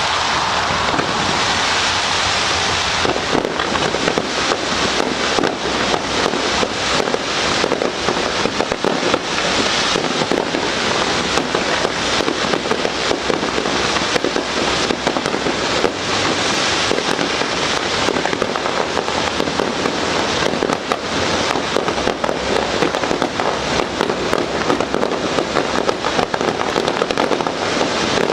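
Fireworks display: a dense, unbroken run of crackling bursts and bangs, with a hissing rush in the first few seconds.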